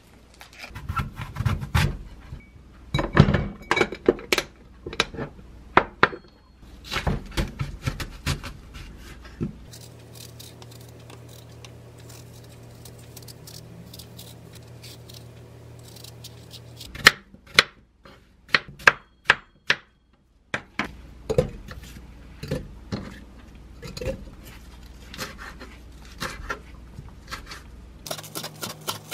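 Kitchen prep sounds: clattering as things are handled, then a kitchen knife striking a wooden cutting board. There is a quick run of sharp, evenly spaced chops around the middle, and steady chopping of angelica and kale leaves near the end.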